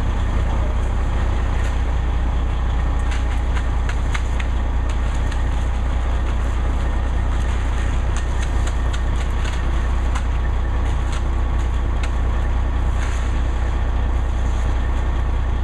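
Concrete mixer truck running steadily, its engine and turning drum giving a constant low drone, with a few faint clicks over it.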